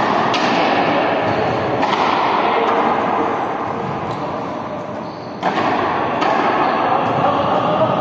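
A few sharp thumps over a steady noisy din; the clearest thump comes about five and a half seconds in, as the din grows louder.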